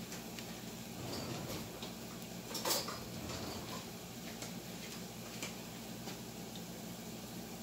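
Yuca patties frying in hot oil in a frying pan over medium heat: a steady sizzle with scattered small pops and crackles, and one louder pop nearly three seconds in.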